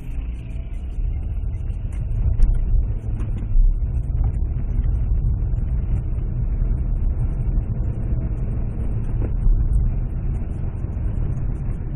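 Steady low rumble of a road vehicle driving, with a few faint knocks.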